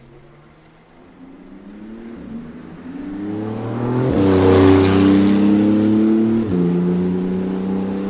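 Porsche 991 GT2 RS's twin-turbo 3.8-litre flat-six accelerating hard past. The engine note climbs in pitch and loudness as the car approaches, is loudest as it passes about four seconds in, then drops sharply with an upshift about six and a half seconds in and climbs again as the car pulls away.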